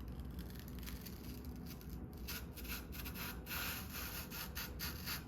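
Rockshox Reverb AXS dropper seatpost sliding into the mountain bike's seat tube, the friction-pasted post rubbing against the tube. The rubbing comes as a run of short strokes starting about two seconds in.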